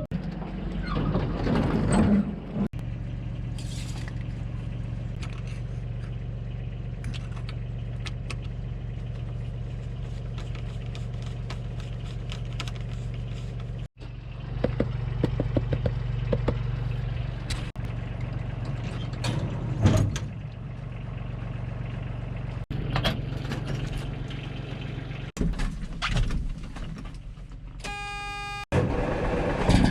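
Mack semi truck's diesel engine idling with a steady low hum, heard in several pieces split by abrupt cuts, with scattered clicks and rattles. A brief steady buzzing tone sounds near the end.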